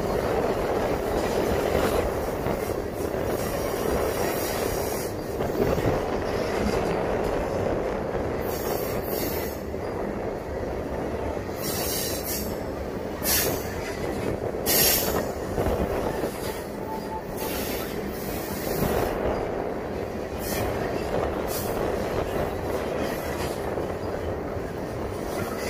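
Freight train cars, mostly covered hoppers, rolling through a curve: a steady rumble of steel wheels on rail, with several short, high-pitched wheel squeals from about a third of the way in, from the flanges grinding on the curved rail.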